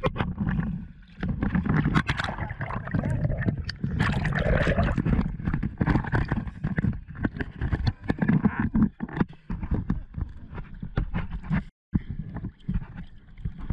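Choppy seawater sloshing and splashing against a camera held at the waterline, with bubbling and many small knocks as it dips in and out of the surface. The sound cuts out for a moment near the end.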